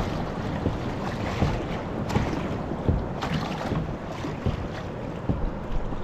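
Water splashing and lapping against a kayak's hull as it moves across the ocean, with small splashes coming every second or less. Wind buffets the microphone.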